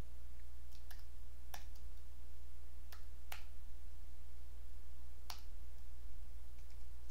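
Computer keyboard keys pressed one at a time, a handful of separate clicks spaced out while a password is typed, over a steady low hum.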